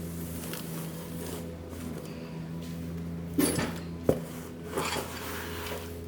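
Metal tools clattering and clinking against metal, with one sharp knock about four seconds in, over a steady low mechanical hum.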